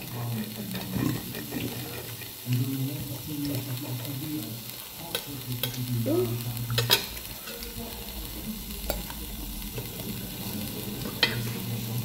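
Knife and fork clicking against a plate a few times while steak is cut and eaten, over a steady sizzling hiss.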